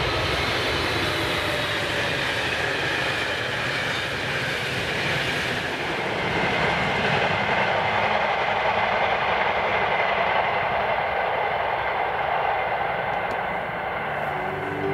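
Train in motion on the rails: a steady rush of rolling noise with a few faint high tones above it.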